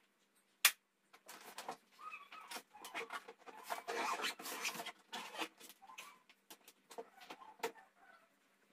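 Hard-shell suitcase being closed and handled: a sharp click, then a run of knocks, rustles and scrapes, busiest in the middle.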